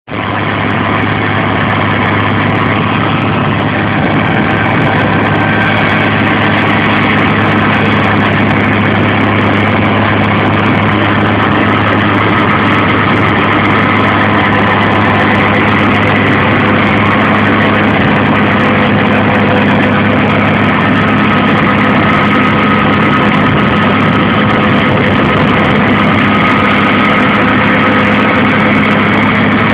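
Heavy tractor engine running steadily with a TOZAMET FG-650B soil stabilizer working behind it: a loud, constant engine note with a strong low hum and no change in speed.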